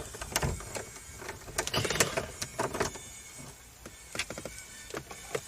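Irregular small clicks and clattering of a tool and hard plastic trim as the T25 Torx screws holding the car's overhead console are worked out. A denser cluster of clicks comes about two seconds in.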